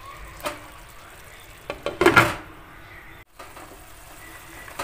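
Meat and tomato sauce simmering in a granite-coated pan with a steady low hiss, and a short clatter of a utensil against the pan about two seconds in.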